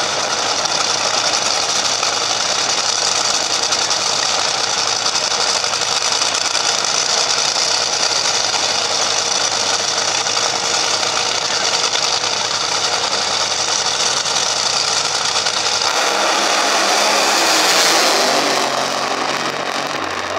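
Top Fuel dragster's supercharged nitromethane V8 idling with a loud, steady, rough rumble. About three-quarters of the way in it launches at full throttle; the sound swells, then falls in pitch and fades as the car runs away down the strip.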